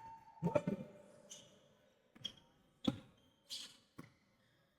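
A basketball bouncing on the court: a handful of faint, irregularly spaced thuds.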